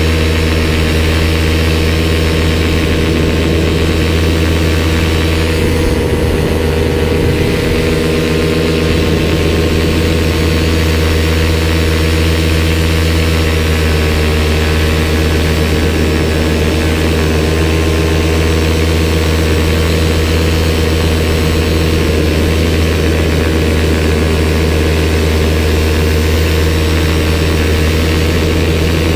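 Paramotor engine and propeller running steadily in flight: a loud, unchanging drone that holds one speed throughout.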